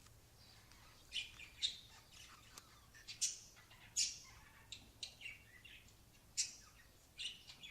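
Lovebirds giving short, high chirps at irregular intervals, the first about a second in.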